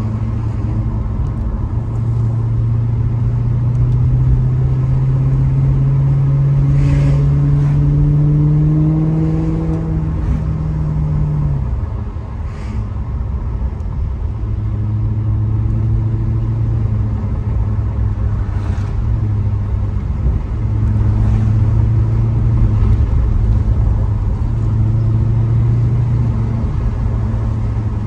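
Maserati GranTurismo's V8 engine pulling under light throttle, its pitch rising slowly for about ten seconds and then dropping sharply. After that it runs at a steady cruise, with a few faint clicks.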